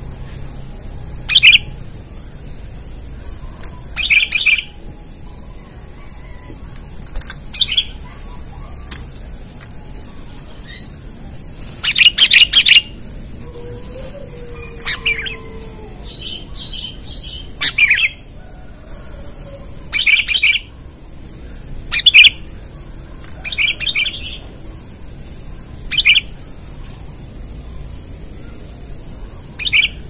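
Sooty-headed bulbul (kutilang) giving short, sharp calls, about a dozen spaced roughly two seconds apart, with a quick cluster of them near the middle. It is a caged decoy bird calling out to a rival.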